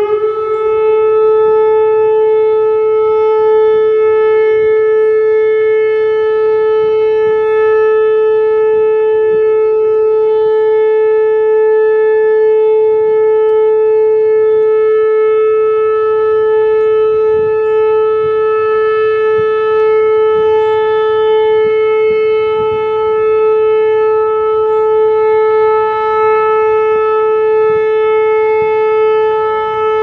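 Whelen WPS 2810 electronic outdoor warning siren sounding one loud, steady tone, unwavering in pitch, during a routine test of the warning system.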